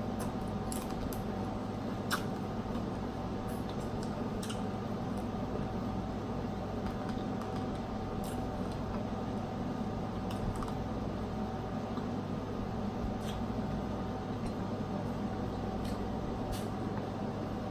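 Mouth and hand sounds of eating snow crab legs and shrimp: scattered sharp clicks and soft squishes of shell and wet food, over a steady low background hum.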